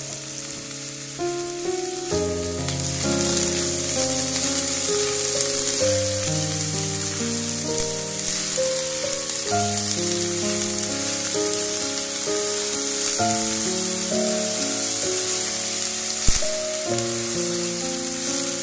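Shredded chayote, carrot and chili sizzling steadily as they are stir-fried in oil in a pan. Background music with a melody comes in about two seconds in. A single sharp knock sounds near the end.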